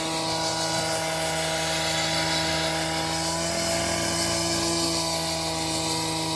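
A motor-driven machine running steadily at constant speed: an even hum with a clear pitch.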